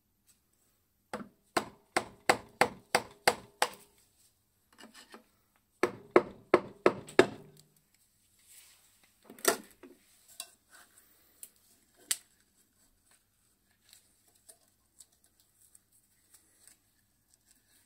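Hammer tapping on the cast-iron housing of an old electric motor to knock the end bell loose. Two quick runs of ringing metal taps, about nine and then about six, are followed by two single harder blows and some light clinks of handling.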